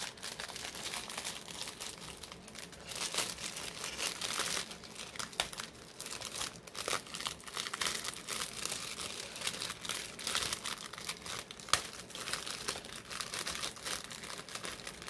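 Clear plastic sleeve crinkling and rustling irregularly as a rolled diamond painting canvas is pushed back into it, with one sharp click about three quarters of the way through.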